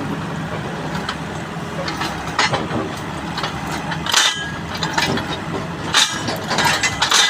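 Excavator engine idling steadily, with several sharp metallic clanks a second or two apart, the loudest about four and six seconds in.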